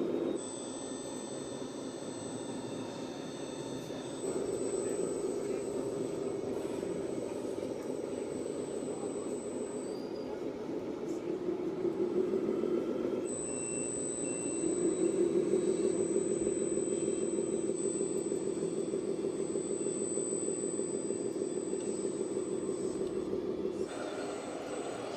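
Radio-controlled model construction vehicles running, with a simulated engine sound from a sound module over the high, steady whine of the electric drive. The sound changes abruptly several times.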